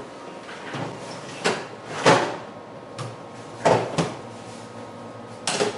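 A series of hard clunks and knocks from a removable disk cartridge being loaded into a front-loading cartridge disk drive and the drive's front pushed shut. There are about five knocks, the loudest about two seconds in.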